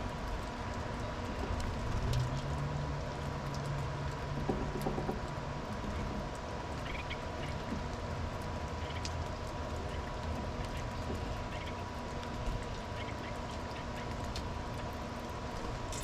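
Outdoor ambience at birdfeeders: a steady background hiss with a few faint, short bird chirps scattered through it. A low hum comes in about two seconds in and fades out around five seconds.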